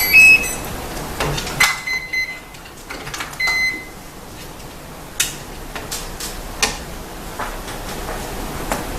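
A 1/14-scale RC hydraulic excavator working: a steady hiss with three short high-pitched whines in the first four seconds, then sharp clicks and knocks every second or so.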